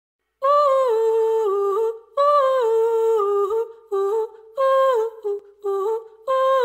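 Unaccompanied wordless solo vocal melody, sped up and raised in pitch. It is sung in short phrases with slides between notes and brief gaps between phrases, and starts about half a second in.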